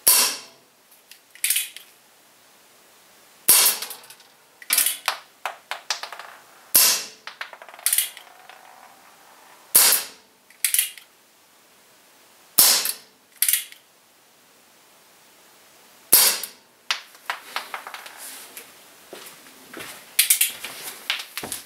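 Umarex Colt Single Action Army .45 CO2 BB revolver firing steel BBs: about seven sharp cracks spaced roughly three seconds apart, with lighter clicks between the shots.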